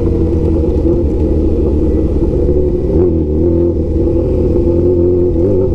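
Honda CB1000 inline-four motorcycle engine running steadily while being ridden, its pitch wavering slightly as the throttle changes.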